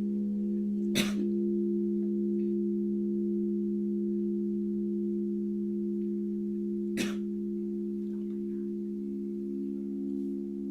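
Singing bowls ringing together in several steady held tones, some with a slow wobble. Two sharp strikes come about a second in and about seven seconds in.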